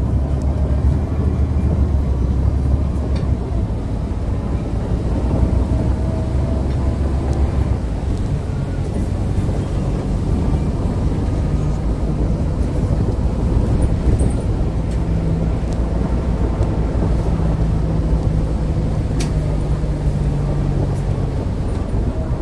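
Mercedes-Benz OC500LE CNG bus running steadily with its engine-cooling fan turning on a bad, worn fan bearing. The low hum changes pitch about two-thirds of the way through.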